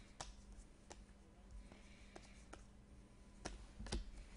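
Sports trading cards being flipped through by hand: a handful of faint, sharp clicks as card edges snap past one another, with the loudest clicks near the end.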